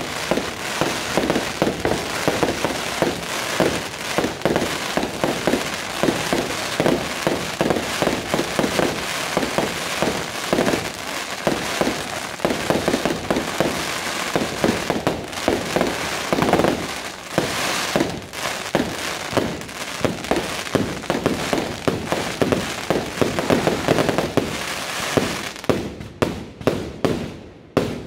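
Aerial fireworks display: a dense, rapid barrage of shell bursts and crackle. Near the end it thins out into separate bangs, each fading away.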